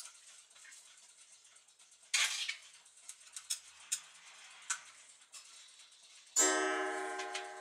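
Gustav Becker clock: light metallic clicks and a short scrape as its hands are turned, then near the end a single strike on the clock's chime that rings out and slowly dies away.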